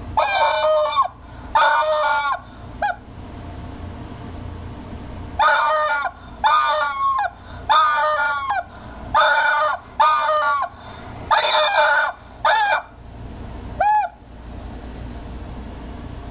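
Rubber chicken toy squeezed again and again, giving honking squawks that bend in pitch. Two long squawks and a short one come first, then after a pause a quicker run of about six more and a last short one.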